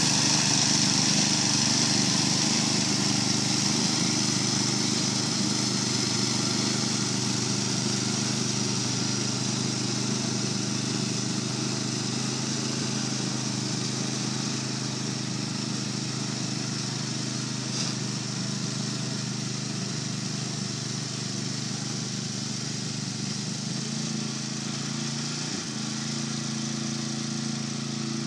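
Two-stage snowblower's small gasoline engine running steadily as it throws snow, slowly growing fainter as the machine moves away.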